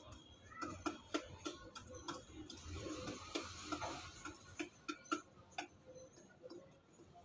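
Rock pigeon pecking rice and seed from a bowl: irregular sharp taps and clicks of its beak on the grain and the bowl, a few a second, with a denser rustle of grain partway through.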